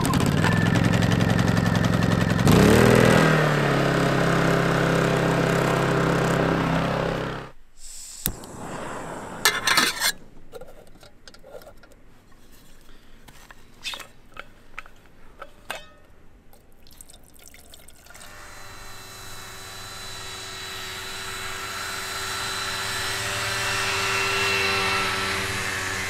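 Small Honda inverter generator running steadily, its engine pitch rising and settling about two and a half seconds in, then cutting off. Afterwards, quieter liquid pouring with small clicks and knocks, and near the end a steady engine drone slowly getting louder.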